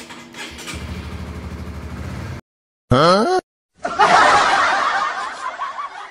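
A motorcycle engine running with an even, low pulse, cut off abruptly after about two seconds. It is followed by a short cartoon sound effect that slides up and down in pitch, then a loud laugh sound effect that fades out near the end.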